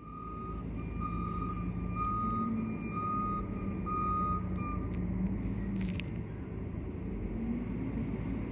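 Rear-loader garbage truck's engine running with a wavering pitch while its backup alarm beeps about once a second for the first five seconds, then stops. A brief sharp click sounds near the six-second mark.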